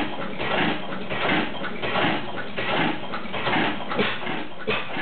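8 HP Goulds, Shapley & Muir single-cylinder hit-and-miss engine running, with a regular repeating beat of exhaust and valve-gear clatter.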